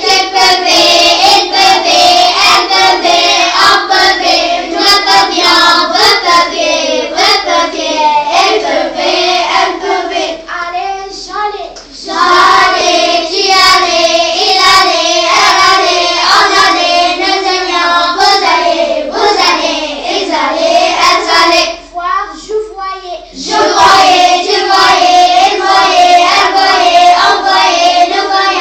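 A child singing a melody, with short breaks about 12 seconds and 22 seconds in.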